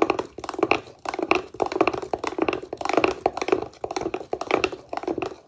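Metal spoon stirring a wet jerk marinade in a small glass bowl, clinking and scraping against the glass in quick, uneven strokes, several clicks a second.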